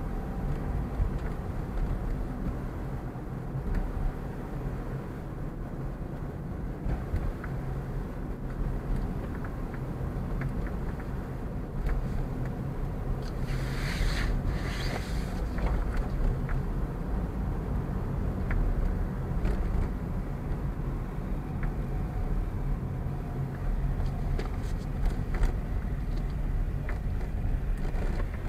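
Car driving slowly, heard from inside the cabin: a steady low engine and tyre rumble with small rattling ticks, and a brief hiss about halfway through.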